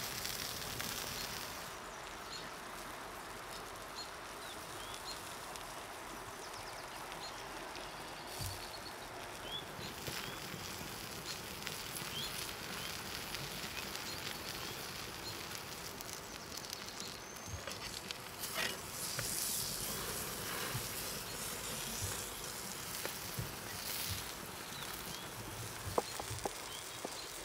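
Beef fillet sizzling on a hot stone over an open wood fire, with scattered crackles from the fire and faint chirping in the background. Near the end, a few sharp knife chops on a wooden board.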